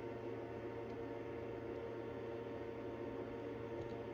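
Steady background hum with a few faint constant tones and no distinct event: room tone at a watchmaker's bench.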